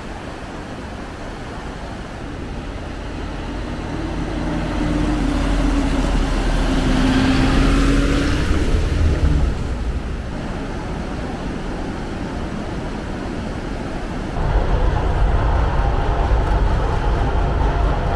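A motor vehicle approaches and passes, its engine loudest about eight seconds in, over the steady rush of a fast river. About fourteen seconds in a louder, steady low rumble begins abruptly.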